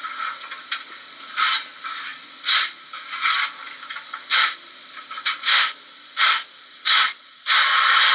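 Model steam locomotive's digital sound from its small onboard speaker: slow, spaced exhaust chuffs with the heavy-load sound setting on, then a steady steam hiss starting about seven and a half seconds in.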